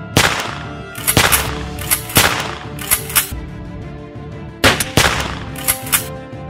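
Dubbed-in movie gunshot sound effects standing in for a Nerf blaster's shots: about ten sharp shots, mostly in quick pairs, each trailing off in an echo, with a pause of over a second midway. Background music with sustained tones runs beneath.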